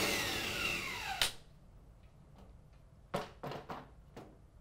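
Power drill spinning down, its motor whine falling in pitch and stopping with a click about a second in, after driving out the ballast's fasteners. Then a few short knocks and clunks from the ballast being handled in the metal fixture.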